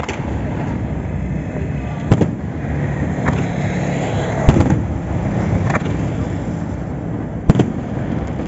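Aerial firework shells bursting: a string of sharp bangs about one to two seconds apart, the loudest coming just as it begins and at about two, four and a half and seven and a half seconds in, over a continuous low rumble.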